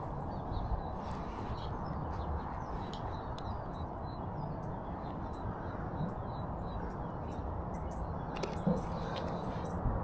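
Outdoor ambience of a steady low rumble with small birds chirping on and off. A single short click sounds about eight and a half seconds in.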